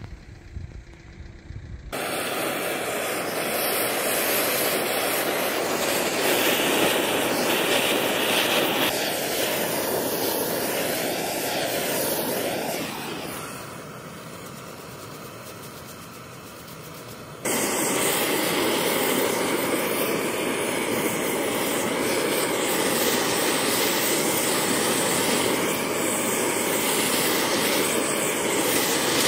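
Handheld butane blowtorch running with a steady hiss as its flame chars a pine frame. It starts sharply about two seconds in, drops to a quieter level for about four seconds in the middle, then comes back at full strength.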